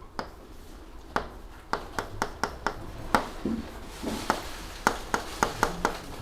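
Writing on a board: a run of irregular sharp taps and short scratchy strokes as the pen or chalk strikes and drags across the surface, over a faint room hum.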